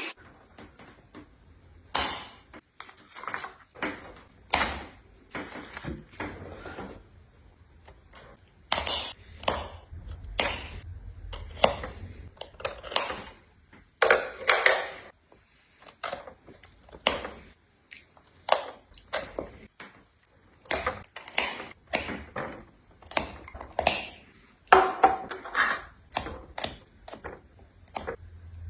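A run of irregular sharp clicks and knocks, uneven in spacing and loudness, with a faint low hum under part of it.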